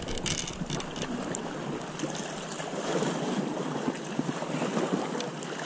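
Small waves washing against shoreline rocks, a steady rushing noise, with wind on the microphone and a few faint clicks.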